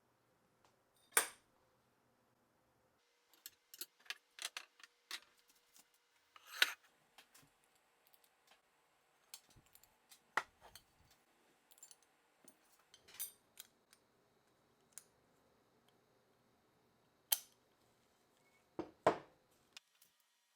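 Scattered sharp clicks and clinks of small metal parts and hand tools being handled, irregular, with a quick cluster a few seconds in and louder knocks about a second in, midway and near the end.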